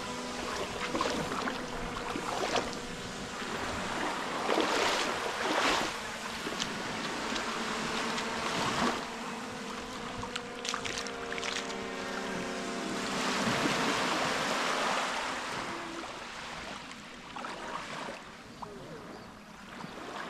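A boat's engine running with a steady hum while water rushes and splashes along the hull, swelling louder a few times.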